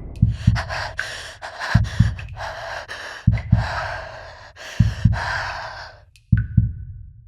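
Horror sound effect of a slow heartbeat: paired low thumps about every second and a half, under heavy, gasping breaths that stop about six seconds in.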